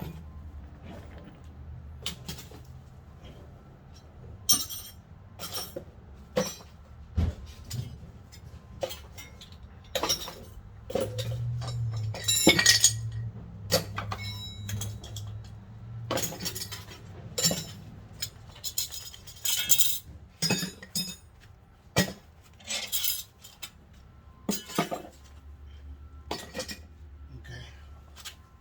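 Metal tools and parts clinking and clattering in irregular sharp knocks, as hand tools and hardware are handled and set down.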